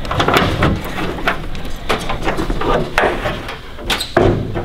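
Hood pins being unclipped and a car hood lifted open: a string of sharp metallic clicks and clunks, with a louder clunk about four seconds in.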